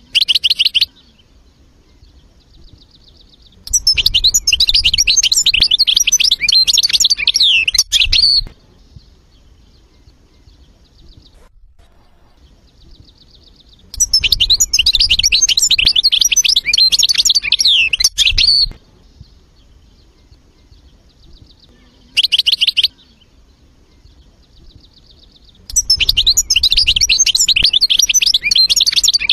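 European goldfinch singing: three long bouts, each about four to five seconds, of fast twittering, trilling notes, with two short bursts between them and faint, quick ticking notes in the pauses.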